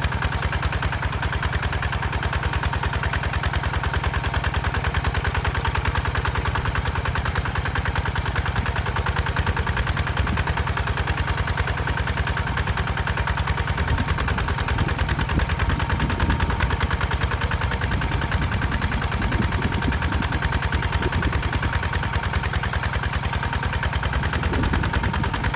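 Single-cylinder diesel engine of a HINOTA HG Gold 155 DI two-wheel walk-behind tractor running steadily under load while it pulls a disc plough through dry soil. It makes a rapid, even chugging of exhaust beats.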